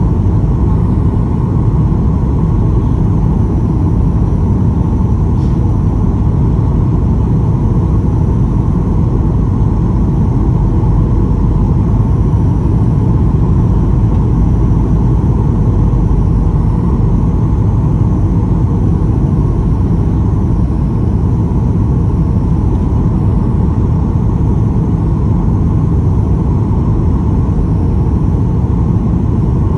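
Steady cabin noise of a Boeing 737-800 on final approach, heard inside the cabin from a window seat over the wing: an even, deep rumble of engine and airflow noise with a faint steady hum above it.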